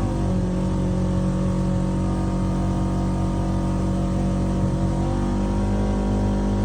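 Polaris RZR 900 side-by-side's twin-cylinder engine running steadily under way, its pitch shifting slightly near the start and again about five seconds in.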